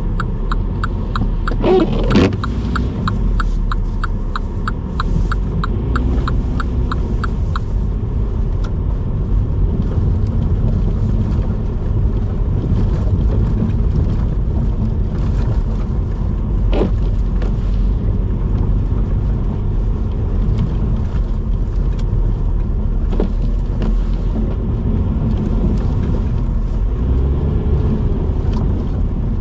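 A car driving on the road, a steady low rumble of engine and tyres. A turn-signal indicator ticks about three times a second and stops about seven seconds in, with a few light knocks later.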